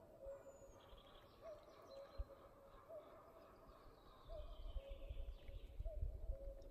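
Common cuckoo calling its two-note 'cuck-oo', the second note lower, repeated about every one and a half seconds. Faint chirps of other small birds are higher up, and a low rumble sets in about four seconds in.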